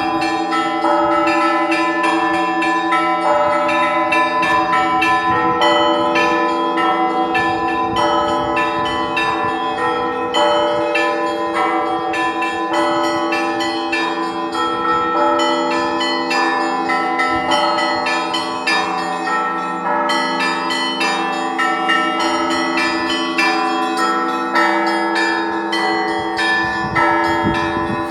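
Church bells ringing together: many smaller bells struck in quick succession over the steady, lingering hum of the larger bells.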